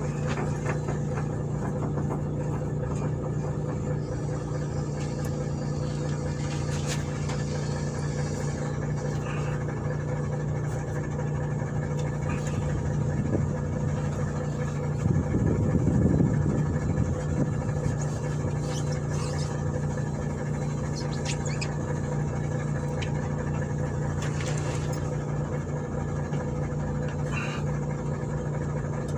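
Engine idling steadily with a low hum, swelling for a couple of seconds just past the middle, with a few faint clicks scattered through.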